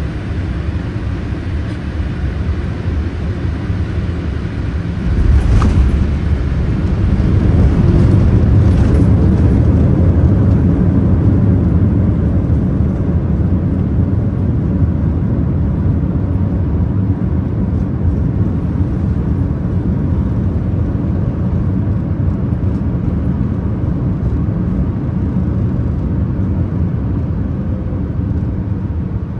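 Boeing 787-8 airliner landing, heard from inside the cabin: a steady rumble of approach noise, a sudden thump about five seconds in as it touches down, then a loud rumble of the landing rollout that peaks a few seconds later and slowly eases off as the jet slows on the runway.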